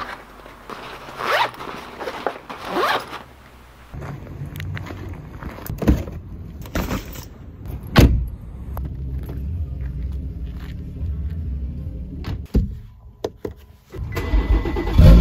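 Small boxes handled and slid on a work mat with rasping scrapes, then a car door opened and shut with a thunk among a few clicks over a low steady rumble. Near the end a car engine starts with a loud rumble from the exhaust.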